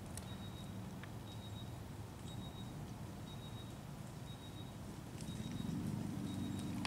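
Faint outdoor background: a low, steady rumble like a distant vehicle engine, growing louder about five seconds in. A faint short high beep repeats about once a second throughout.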